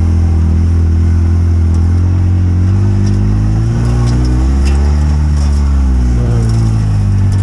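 Off-road vehicle engine running steadily as it drives over a rough path. Its pitch rises and falls about halfway through.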